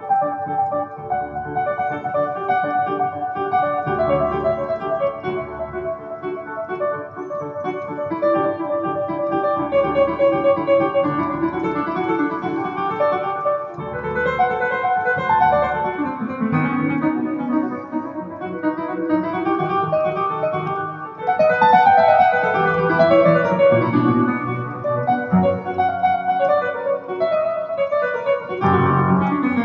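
Digital piano played with both hands in its piano voice, a continuous piece of held chords and running notes. It grows louder about two-thirds of the way through.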